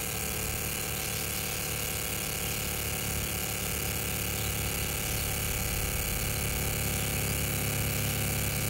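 Laser marking machine running while it engraves numbers on a card: a steady electric hum with a few faint held tones, growing slightly louder near the end.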